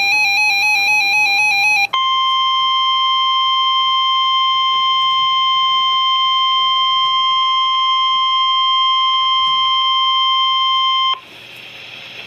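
The tail of an emergency-alert SAME digital header, a fast warbling data tone for about two seconds, then the NOAA Weather Radio 1050 Hz warning alarm: one steady, loud, high tone held for about nine seconds that cuts off abruptly. It signals that a new weather warning message is about to be read, and a faint hiss follows it.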